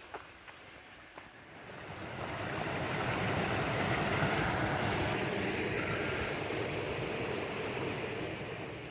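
A vehicle passing by: a rush of noise that swells over a couple of seconds, holds, then slowly fades away. A few faint footsteps can be heard at the start.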